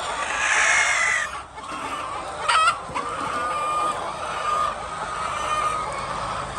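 Flock of domestic hens clucking and calling steadily, with one louder drawn-out call about half a second in and a short sharp squawk about two and a half seconds in.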